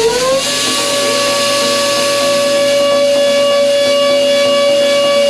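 DATRON CNC milling spindle whining as it finishes spinning up. The pitch rises and levels off about half a second in, then holds steady and high as the end mill works the metal disc, with a steady hiss underneath.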